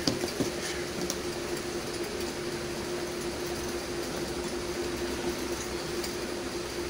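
A steady background hum with one held tone, with a few light clicks and knocks in the first second or so as a corded power drill is handled.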